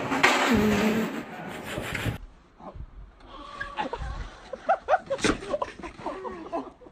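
Loud rough rolling noise of a hand pallet truck ridden fast along a floor until a crash. Then people's excited voices and cries with a sharp knock as a worker falls from a trestle stand onto the ground.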